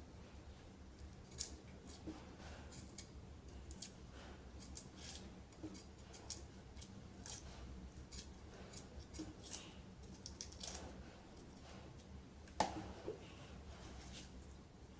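A run of short, crisp clicks and snips at an irregular pace, with a low steady hum beneath; one click about twelve and a half seconds in is the loudest.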